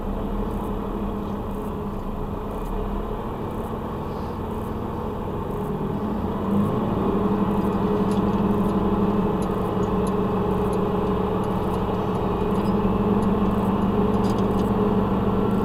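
An 8x4 truck's diesel engine pulling under load as the truck reverses uphill, heard from inside the cab; about six and a half seconds in the revs rise and the engine grows louder and stays up.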